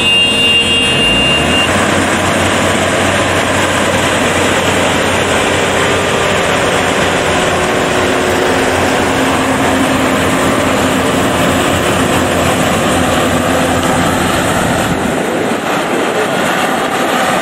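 Yanmar YH850 rice combine harvester running steadily, a loud, dense mechanical noise.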